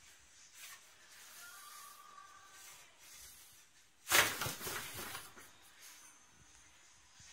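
A sudden noisy burst about four seconds in, fading over about a second, from a cat inside a cardboard box as a wooden spoon pokes in through the box's handle hole; before and after it, only faint room sound.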